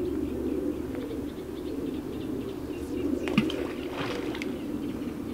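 Pigeons cooing steadily, with a few small-bird chirps around three to four seconds in.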